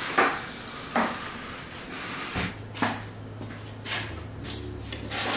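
A few separate knocks and clunks of parts and tools being handled and set down on a metal workbench, with a low steady hum coming in about two and a half seconds in.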